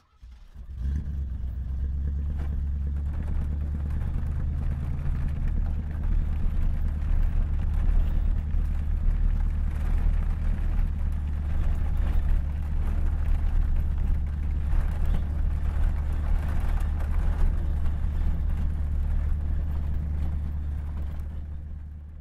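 A vehicle engine running steadily at an even, unchanging speed, deep and low-pitched. It starts just after the beginning and cuts off right at the end.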